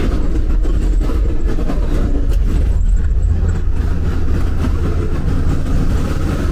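Bus cabin at highway speed: a steady, loud low rumble of engine and road noise.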